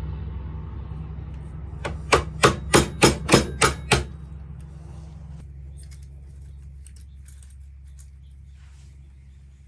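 Hammer striking a pin punch to drive the handle pins out of a pocket knife: about seven quick, sharp metal taps in roughly two seconds. A low machine hum underneath slowly fades away.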